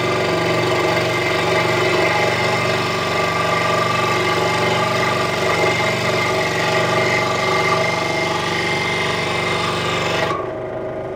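Central Machinery 16-inch scroll saw running, its reciprocating blade rasping through a strip of solid wood fed by hand under heavy pressure. About ten seconds in, the cutting noise stops as the blade breaks through the end of the cut, and the saw's motor hum carries on. The hard feed is put down to a dull blade or too-light blade tension.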